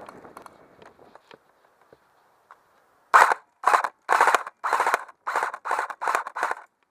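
Airsoft rifle firing about eight quick bursts, roughly two a second, starting about three seconds in.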